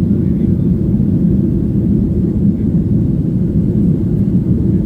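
Steady, low-pitched noise of a Boeing 737-900 airliner in motion, heard from inside the passenger cabin.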